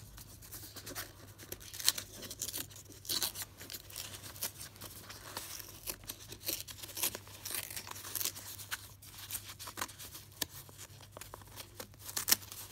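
A brown paper envelope being torn open by hand: irregular rips and crinkling of the paper, with the sharpest tear about two seconds in and more near the end.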